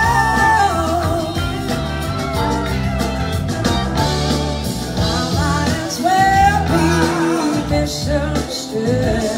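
Live blues-rock band playing: electric guitars and keyboards over bass and drums, with held and sliding melody lines, heard from the crowd.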